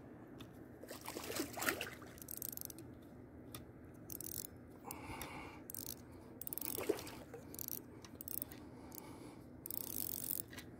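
Spinning reel being cranked in short spells to retrieve a lure, its gears whirring and clicking.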